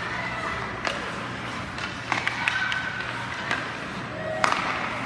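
Game sounds on an ice rink: about seven sharp knocks of sticks against the puck or boards, the loudest a little after four seconds in, over distant players' shouts.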